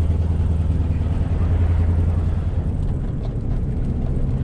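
Dodge pickup truck's engine running as it drives, heard from inside the cab as a deep, steady drone. About two and a half seconds in the deepest part of the drone eases off and a slightly higher hum carries on.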